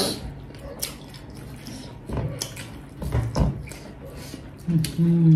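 Close-up eating sounds: wet smacking and squishing as rice is mixed and eaten by hand from metal plates, in scattered short clicks over a steady low hum. A voice begins just before the end.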